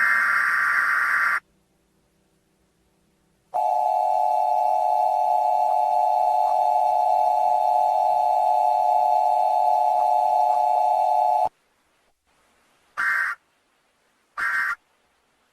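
Emergency Alert System tone sequence. It opens with the tail of a buzzing digital header data burst. After a short silence comes about eight seconds of the steady attention tone. After another gap there are two short data bursts of the end-of-message code.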